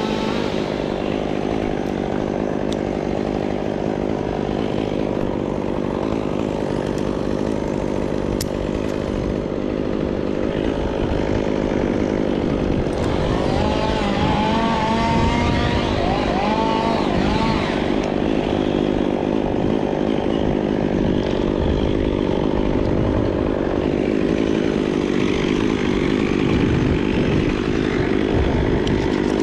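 An engine running steadily, with some wavering higher-pitched tones about 13 to 18 seconds in.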